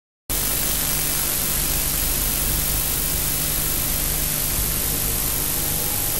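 Steady hiss with a low hum from the soundtrack of an old 1949 film, starting abruptly just after the beginning and running evenly, with no music or speech yet.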